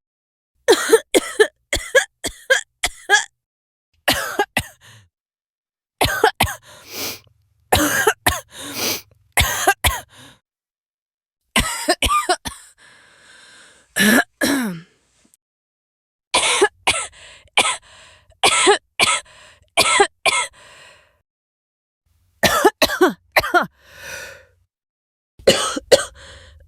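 A person coughing in repeated fits: clusters of several short, sharp coughs, a dozen or so bouts with brief silences between them.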